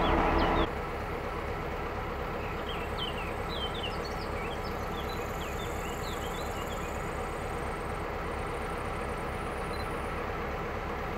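SŽ 664 diesel locomotive's engine running with a loud steady hum that drops off suddenly under a second in, leaving the quieter steady low rumble of the standing locomotive idling. Birds chirp over it and a faint high insect buzz comes in later.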